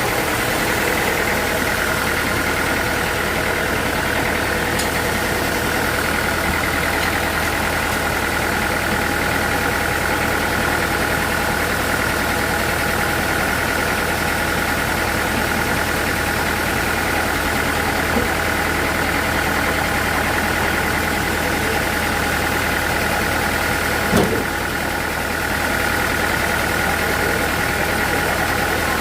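Sawmill machinery running steadily, a constant drone with a steady high whine over a low hum. One short knock about 24 seconds in.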